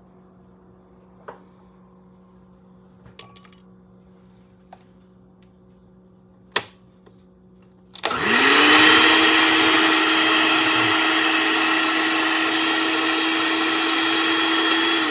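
A few light clicks and one sharp click, then about eight seconds in a countertop blender's motor switches on, spins up quickly and runs at a steady high speed with a loud whirring whine.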